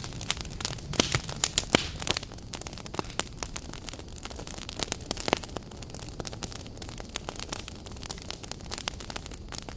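Firewood burning briskly in an agungi, a Korean wood-fired fire-hole: a steady low rumble of flame, with irregular sharp crackles and pops, more of them in the first couple of seconds.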